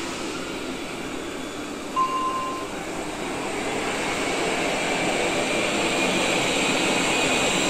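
Roborock S7 Pro Ultra robot vacuum running, its suction fan giving a steady rushing noise with a high whine that grows louder, from about 61 to 69 dBA. A short beep sounds about two seconds in.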